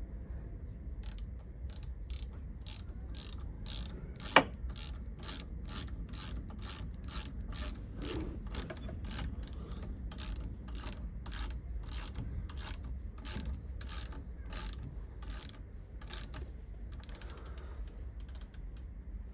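Ratchet wrench clicking steadily, about two or three clicks a second, as a brake caliper bolt is turned, with one sharper knock about four seconds in.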